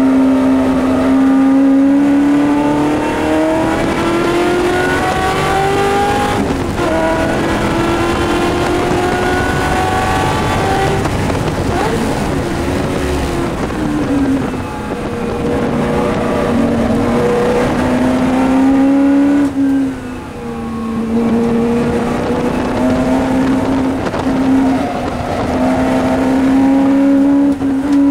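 Racing car's engine heard from inside the cockpit under hard acceleration, rising in pitch through the gears with a shift about six seconds in. Around the middle it lifts off and is blipped through downshifts for a corner, then pulls hard again near the end.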